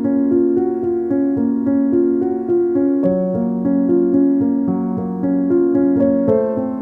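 Background music: a piano or electric-piano melody played over sustained chords.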